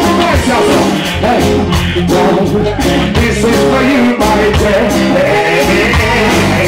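Live reggae band playing loudly on stage: drum kit and electric guitar, with a singer's voice over the band.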